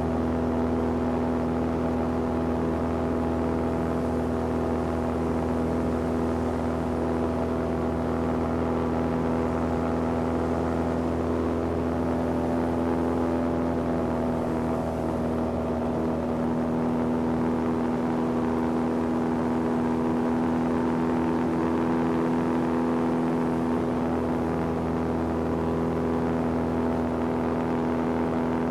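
Airboat engine and propeller running at a steady speed: a constant hum held at one pitch, with a strong low tone.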